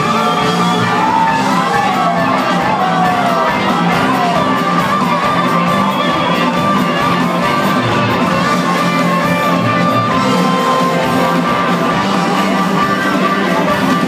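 Live blues-rock band playing with a steady drum beat and bass under a lead harmonica, whose notes bend downward early on, with shouts from the crowd.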